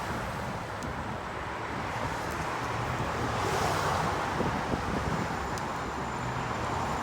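Wind buffeting the microphone of a camera on a moving bicycle: a steady rushing noise with low, rumbling gusts that swell and fade.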